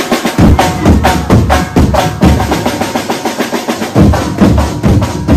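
Fast, dense procession drumming with heavy bass-drum strokes and sharp higher hits. The deep drum drops out for about a second and a half in the middle, then comes back in.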